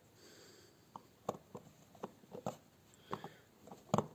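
Small, irregular clicks and taps of watchmaker's hand tools, pegwood and tweezers, against a wristwatch movement, about seven in all, the loudest near the end.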